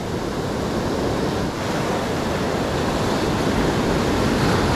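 Ocean surf breaking and washing up the beach in a steady rush of foam and water, swelling slightly louder as a wave comes in.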